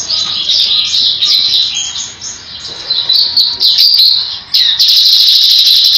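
Grey-headed canary-flycatcher singing a fast, high-pitched chattering song of rapid notes, with short pauses about two and four seconds in before a longer unbroken run near the end.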